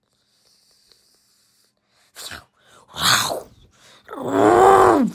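Monster cries for the toy alien and Predator. A short burst comes about two seconds in, a louder harsh cry about a second later, then a drawn-out groaning cry near the end that rises and then falls in pitch.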